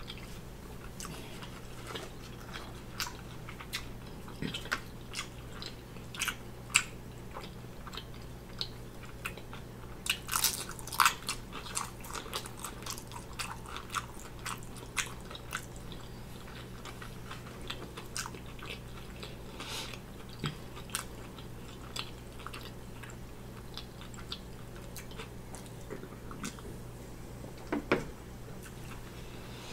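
Close-miked chewing of a mouthful of bacon cheeseburger, with many short mouth clicks and smacks that come thickest about a third of the way in. A single louder knock near the end as the soda can is picked up from the wooden tray.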